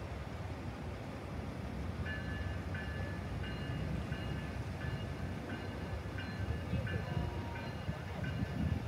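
Railroad crossing warning bell ringing steadily, about one and a half strikes a second, starting about two seconds in, over a low rumble. It is the warning that a train is approaching the lowered gates.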